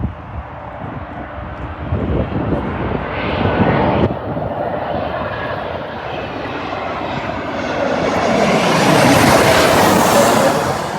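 Airliner's engines roaring as it passes close by, the noise swelling gradually to a loud peak about nine to ten seconds in, then starting to fade.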